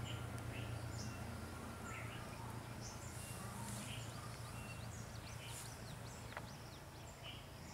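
Faint outdoor ambience of small birds calling, scattered short chirps and quick falling whistles throughout, over a steady low hum. One sharp click about six seconds in.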